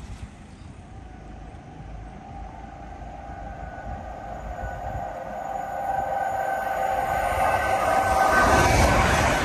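A train approaching, growing steadily louder, with a steady whine over a low rumble.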